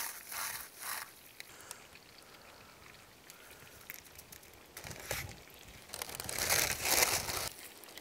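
Crushed cornflakes and breadcrumbs crunching and crackling under hands as a wheel of brie is pressed into them for a crumb coating, in short spells near the start and a longer, louder spell in the second half.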